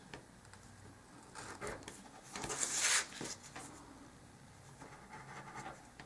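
Craft knife blade scraping through white cardstock on a cutting mat: one short, scratchy stroke about two and a half seconds in, with a few faint paper rustles around it.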